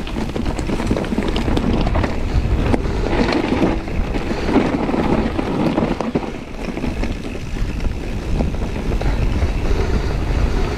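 Wind rushing over the microphone and mountain-bike tyres rumbling on a dry dirt trail during a fast descent, with scattered small knocks and rattles from the bike over bumps.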